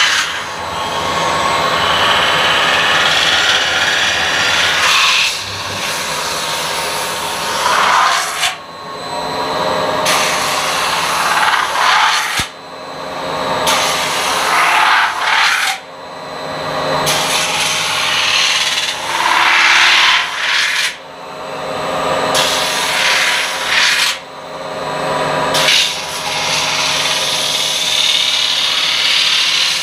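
CNC metal spinning machine forming a stainless steel cake pan: the forming roller presses and rubs along the spinning steel blank in repeated passes. It makes a loud scraping hiss that builds and then cuts off every three to four seconds, over a steady machine hum.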